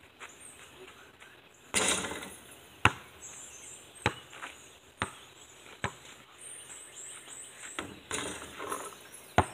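A basketball bouncing on hard ground, sharp thuds about a second apart, with a longer noisy clatter about two seconds in and another near the end. Birds chirp in the background.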